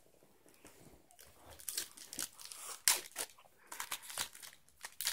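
Foil wrapper of a Magic: The Gathering booster pack being torn open and crinkled in the hands. It makes a run of irregular crackles that starts about a second and a half in.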